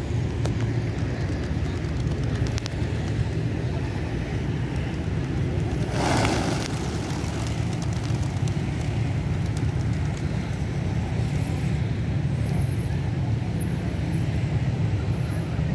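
Steady low rumble of road traffic, with a sudden burst of wing flapping about six seconds in as a flock of feral pigeons takes off together.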